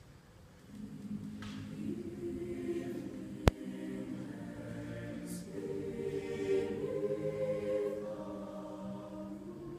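High-school mixed choir singing sustained chords. The voices enter softly about a second in and swell louder past the middle. A single sharp click sounds about three and a half seconds in.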